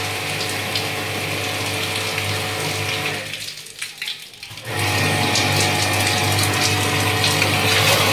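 Electric jet pump (high-pressure washer) motor running with a steady hum, with water hissing from the spray gun onto the AC outdoor unit's coil. It stops for about a second and a half around the middle, then starts again.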